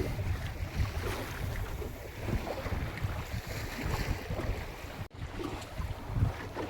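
Wind buffeting the microphone over the wash of water along the hull of a small spritsail boat under way, with a brief break about five seconds in.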